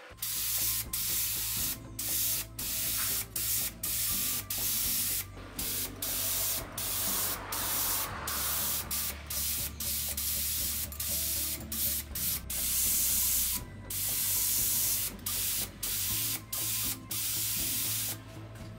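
Gravity-feed compressed-air spray gun spraying paint in many short hissing bursts as the trigger is pulled and released, with a few longer passes. A low steady hum runs beneath.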